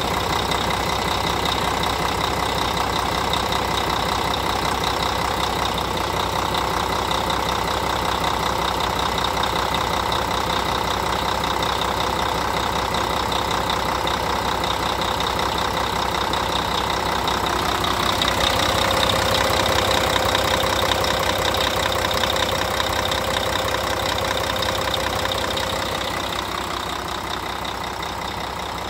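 2007 Volvo VED12 12-litre inline-six diesel idling steadily in the truck. About two-thirds of the way through it gets somewhat louder, with a steady tone added, and eases back near the end.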